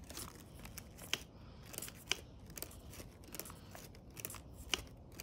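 Folded origami paper crinkling and clicking as it is handled in the fingers, with several sharp, separate ticks.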